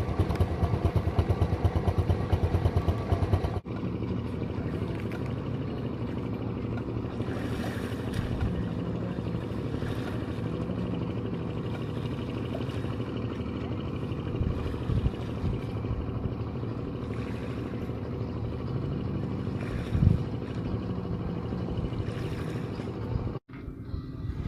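A motor engine running, with fast even pulsing for the first three and a half seconds. After a sudden cut it gives way to a steadier drone with shifting low tones, which cuts off again about a second before the end.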